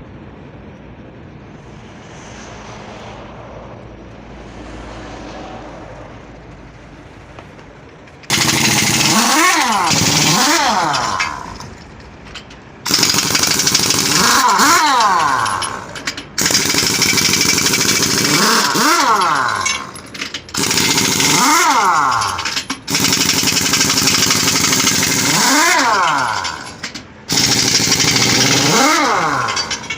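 Pneumatic impact wrench hammering at the truck wheel's nuts in six loud bursts of a few seconds each, with short pauses between, as the wheel is taken off for a tyre change. A low steady hum fills the first several seconds before the first burst.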